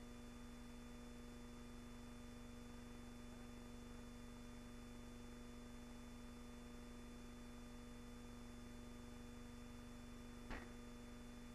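Near silence: a steady hum with faint hiss, broken by a single short click near the end.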